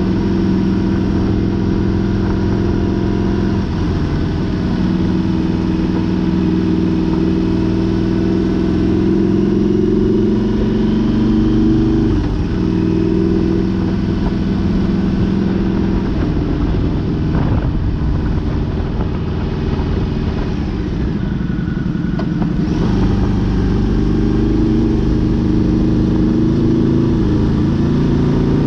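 Motorcycle engine running under way at road speed, its pitch shifting several times as speed and throttle change, over steady wind and road noise.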